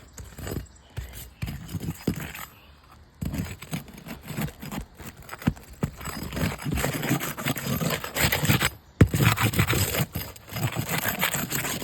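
Metal roof snake scraping and rasping under asphalt shingles to break their seal, with irregular clicks and knocks. It gets busier and louder about three seconds in, with one sharp knock near the end.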